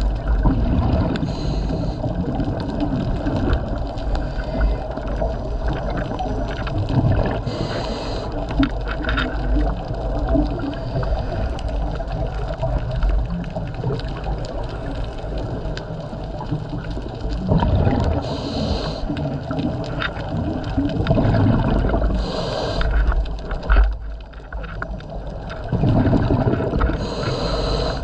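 Muffled underwater noise picked up through a camera housing on a scuba dive: a steady low rumble, broken every several seconds by a short rush of exhaled regulator bubbles.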